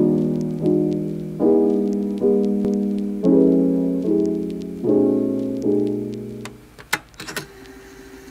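Background music: keyboard chords struck about every 0.8 s, each one fading before the next, stopping about six and a half seconds in, followed by a few sharp clicks.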